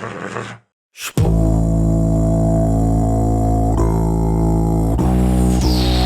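Beatbox throat bass: a loud, steady, buzzing low drone that starts about a second in after a brief silence. Near the end it turns into a quick, even pulsing.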